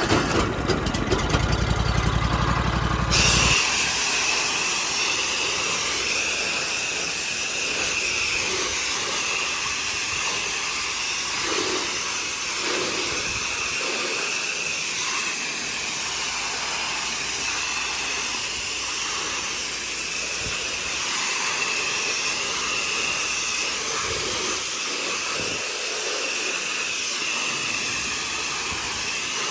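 An 8 GPM pressure washer's engine running just after starting; about three seconds in, the spray gun opens and a steady loud hiss of high-pressure spray takes over, with a high whine running through it.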